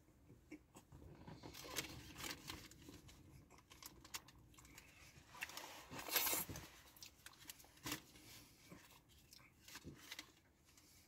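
A fast-food wrap's paper wrapper being unwrapped and torn open: faint, irregular crinkling and tearing with small clicks, loudest in one burst about six seconds in.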